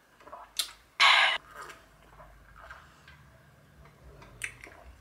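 A person sipping a drink from a tumbler, with small mouth clicks and one short, loud breathy burst about a second in.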